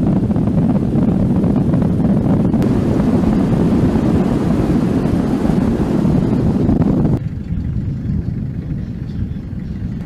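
Loud rushing noise of a pickup truck driving fast over desert sand, with wind buffeting the microphone. About seven seconds in it cuts off suddenly to a quieter, steady wind.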